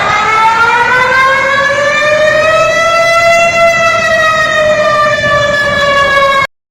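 Public warning siren wailing: one pitched tone with overtones that rises slowly to a peak and then slowly falls, cutting off abruptly near the end.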